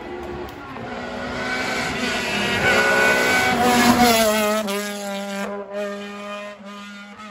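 Rally car at full throttle approaching, its engine note rising and growing louder, passing close about four seconds in with a drop in pitch, then pulling away up the road with the note breaking briefly a few times and fading.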